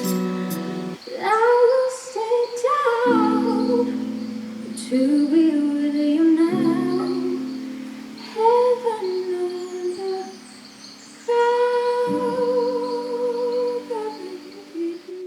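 Music: a woman's voice humming wordless phrases over sustained piano chords, with no drums. The music thins out briefly a few times between phrases.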